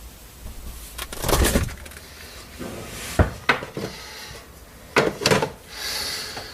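A few separate knocks, clicks and rattles of household things being handled, like a door or drawer being opened and objects moved, with a sharp click about three seconds in.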